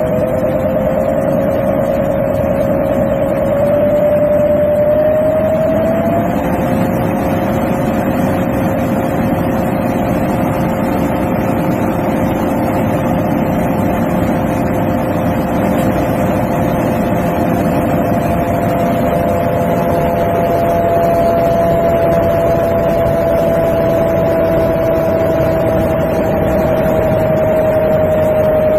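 Electric aircraft motor spinning on a test stand: a steady high whine of two tones over a broad rush. The upper tone climbs in pitch about four to six seconds in, then holds, easing down a little near the end.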